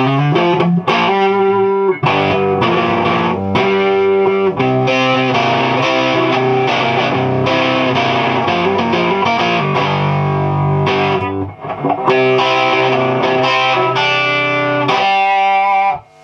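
Electric guitar, a Gibson Les Paul with P90 pickups on its neck pickup, playing chords through a hand-built clone of a 100-watt Hiwatt DR103 valve head and a cabinet of four Eminence Tonkerlite speakers, with a bit of crunch. The playing dips briefly about two thirds of the way through and stops sharply near the end.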